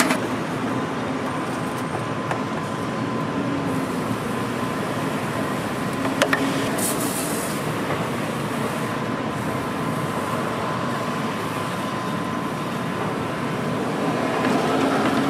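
Steady outdoor street noise, a continuous rumble and hiss with a faint steady high tone running through it. A sharp click comes about six seconds in, followed by a short high hiss.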